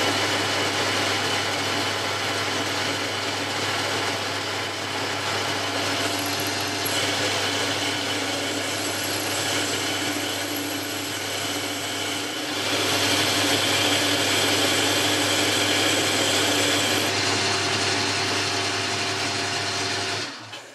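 Boxford lathe running steadily, turning down a metal blank for a thumb screw. The sound cuts off abruptly just before the end.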